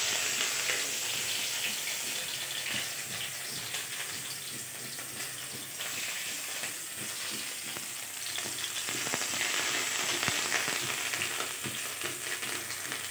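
Chopped garlic and green chilli sizzling in a little hot oil in a wide metal kadai, with a flat metal spatula scraping and stirring now and then. The sizzle is steady and is loudest at the start, just after the pieces go into the oil.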